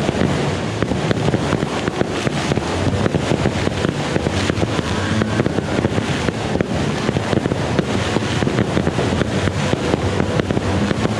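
Fireworks going off in a dense, unbroken barrage: rapid crackles and pops over a steady rumble.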